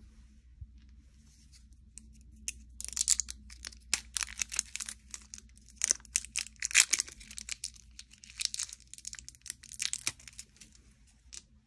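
Thin plastic shrink-wrap being torn and crinkled off a pack of AA batteries, a dense irregular crackling that starts about three seconds in.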